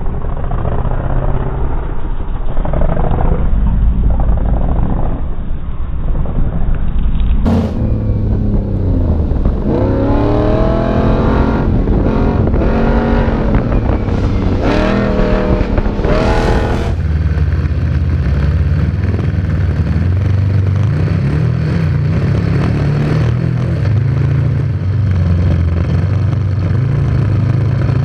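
Off-road vehicle engine running hard over sand, heard from an onboard camera. Through the middle it revs up and down repeatedly, then settles to a steadier drone. The sound changes abruptly twice, about a quarter and about three fifths of the way in.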